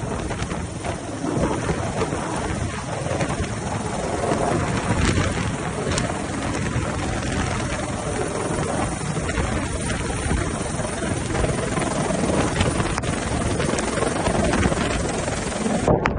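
Rescue helicopter hovering overhead during a winch hoist: steady rotor noise.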